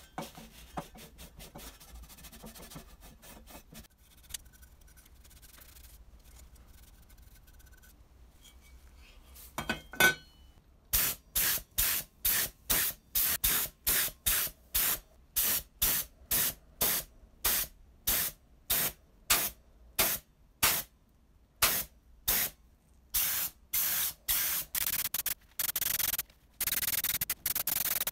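Faint cloth rubbing on a sheet-metal part, then an air paint spray gun hissing in short repeated bursts, about two a second, starting about eleven seconds in. Near the end the bursts lengthen into almost continuous spraying.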